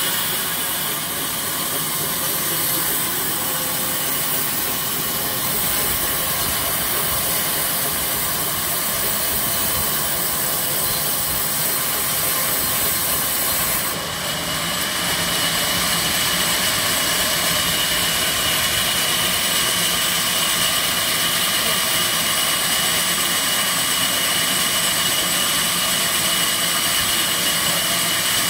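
Large sawmill band saw running steadily and sawing lengthwise through a rain tree log, a continuous machine drone with a high steady whine; about halfway through the hiss of the cut gets brighter and stays so.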